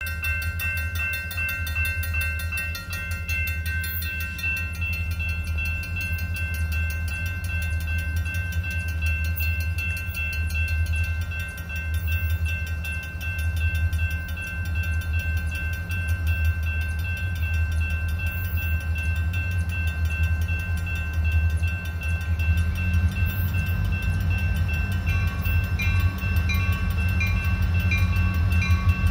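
Grade-crossing bell ringing steadily over the low rumble of an approaching freight train's diesel locomotives, a GP40-2LW leading two SD40M-2s. The engine rumble grows louder about three-quarters of the way through as the train draws near.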